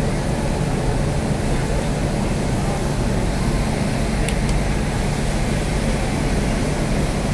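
Steady hum and hiss of a standing WAP-7 electric locomotive's blowers and auxiliary machinery running close by, with a faint short click about four seconds in.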